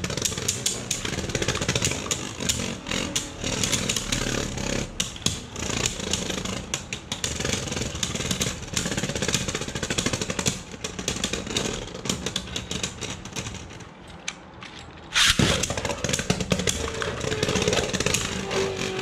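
Two Takara Tomy Beyblade Burst spinning tops, Shelter Regulus against Hell Salamander, whirring and clattering in a plastic Beyblade stadium, with rapid sharp knocks as they strike each other and the stadium. About fifteen seconds in, the clatter dies down for a moment, then resumes abruptly loud.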